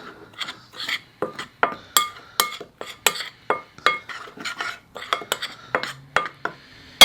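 A metal utensil stirring seasoned flour in a bowl, clinking against the bowl's side about two to three times a second.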